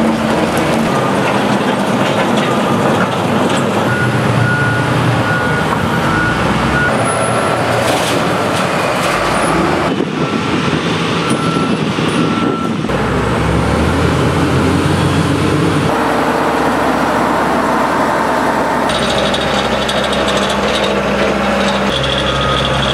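Diesel engines of heavy road-works machinery (wheel loader, excavator, dump trucks, road roller) running, with a reversing alarm beeping at intervals. The engine sound changes abruptly a few times.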